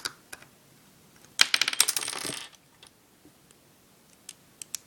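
A small metal part clattering on a hard surface: about a second of rapid, irregular metallic rattling a second and a half in. A couple of light clicks come before it and a few faint ticks near the end, from small parts being handled during the iPod repair.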